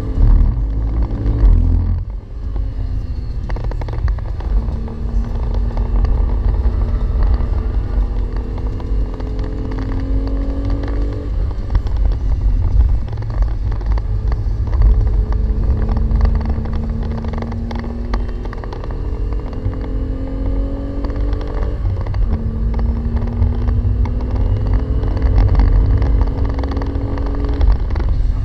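Renault Clio V6's 3.0-litre V6 heard from inside the cabin under hard driving. Its note climbs slowly under load and drops back sharply three times, over a heavy low rumble.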